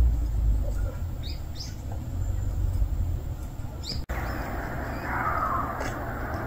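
Outdoor ambience: a low rumble with a few short, high bird chirps in the first four seconds. After a sudden cut about four seconds in, a steady hiss.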